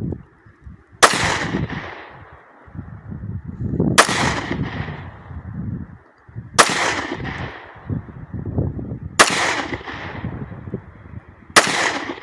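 Ruger-57 pistol firing 5.7×28mm rounds: five single shots, spaced about two and a half to three seconds apart, each followed by a short ringing tail.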